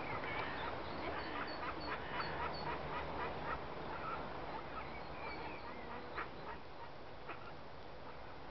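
A mother duck quacking with her ducklings peeping, a quick run of short calls and high chirps through the first half that thins out to occasional calls later.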